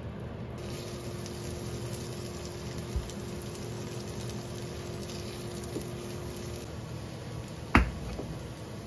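Salmon pieces and zucchini slices sizzling in oil in a frying pan, a steady hiss with a faint hum under it. A small knock about 3 s in and a louder sharp knock near the end.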